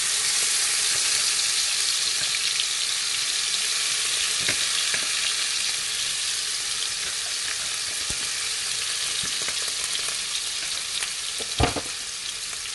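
Ground spice paste sizzling in hot oil in a frying pan, a steady hiss that eases slowly. A single sharp knock near the end.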